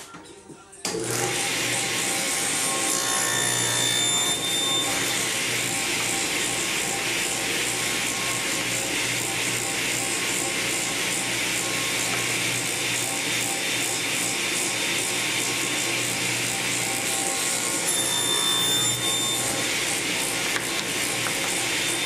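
Table saw switched on about a second in, then running steadily as a strip of eastern red cedar is fed through the spinning blade.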